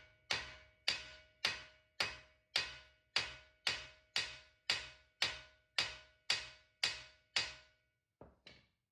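Sledgehammer striking the end of a 2016 Subaru Forester's CV axle, about two blows a second, each with a short metallic ring, then two lighter taps near the end. The axle is rust-welded into the hub and is not being driven out.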